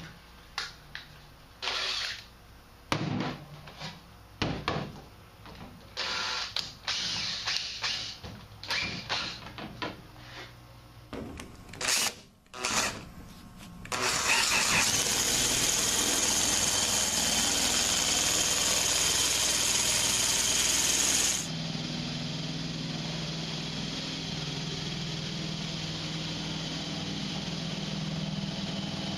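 Scattered knocks and rattles of sheet metal being handled, then about halfway in a power tool starts up and runs steadily, cutting into the furnace's sheet-metal side. It runs loud and harsh for several seconds, then settles to a lower, steadier running sound with a hum.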